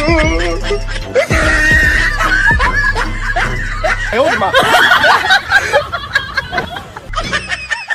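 Laughter and snickering over background music with a steady bass line.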